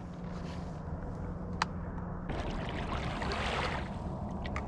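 A single faint sharp crack about one and a half seconds in, then water trickling and lapping against a kayak hull as the kayak moves across calm water.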